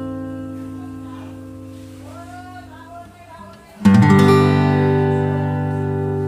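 HEX Sting F300CE G acoustic-electric guitar (solid Sitka spruce top, sapele back and sides) being strummed. A chord rings and slowly fades, then a fresh chord is strummed about four seconds in and rings on.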